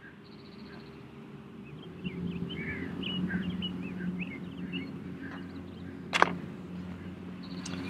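Birds chirping over a steady low hum. About six seconds in there is a single sharp click from the golf putt.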